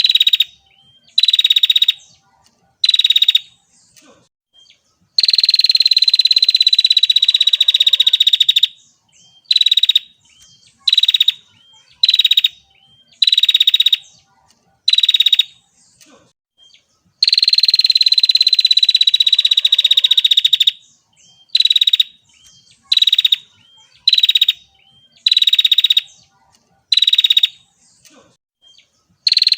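Female prinia (prenjak) calling: a series of short, high buzzy notes about one a second, broken twice by a long buzzy trill of about three and a half seconds that falls slightly in pitch.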